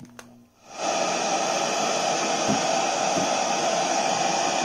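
A click as the SuperSonic SC-3201BT portable radio cassette player is plugged in, then, about a second in, a loud steady hiss of static from its speaker as it powers up on no station.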